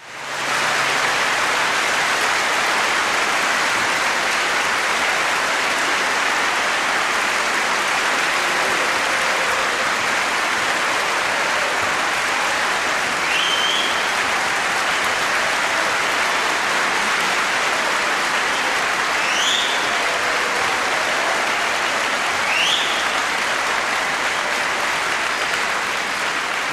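Heavy, steady rain, a dense even hiss that swells up within the first second and holds. A few short rising chirps come through the rain in the second half.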